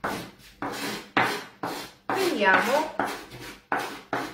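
Hand scraping and rubbing over a floured wooden pastry board in quick, even strokes, about two a second. A brief pitched sound that bends up and down comes about halfway through.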